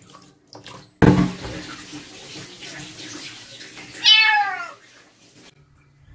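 Water splashing in a plastic basin, then a sudden rush of water into a stainless-steel sink about a second in that stops abruptly near the end. Partway through the rush a wet kitten gives one loud meow falling in pitch.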